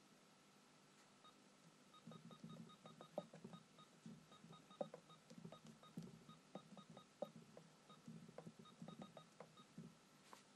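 Typing on a Panasonic JR-200 home computer's keyboard: a quick, uneven run of keystrokes, most of them with a short high beep. The typing picks up about two seconds in.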